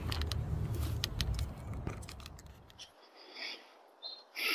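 Handling noise: a run of sharp clicks and scrapes over a low rumble, which stops abruptly about three seconds in, followed by a few faint rustles.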